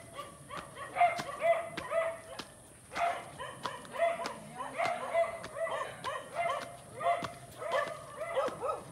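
A dog barking repeatedly in a steady run of short barks, about two or three a second.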